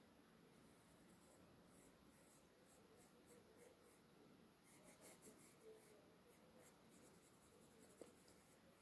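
Faint scratching of a graphite pencil on paper in many short strokes, busiest about midway through, with a small tick near the end.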